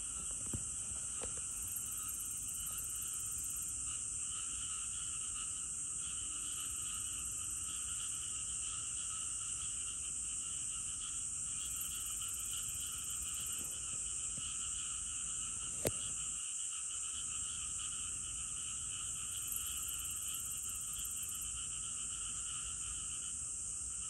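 Steady outdoor chorus of insects and frogs: a continuous high-pitched buzz with lower pulsing trills underneath. A higher buzz joins three times for about two seconds each, and there is one sharp click about two-thirds of the way through.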